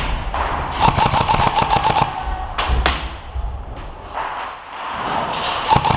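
Airsoft electric gun firing full-auto bursts: a rapid clatter of shots with a whine underneath, one burst lasting about a second from about a second in, a couple of single cracks just after, and another burst starting near the end.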